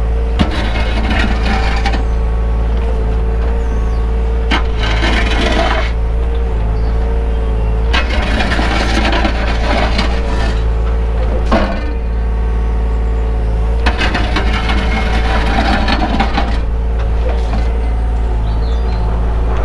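Takeuchi excavator's diesel engine running steadily with a held tone, heard from the cab, while the bucket scrapes mud off the hard track surface in about five rasping passes of a second or two each.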